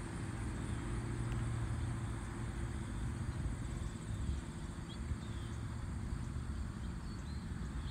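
Outdoor background: wind rumbling on the microphone over a steady hiss, with a few faint bird chirps about halfway through.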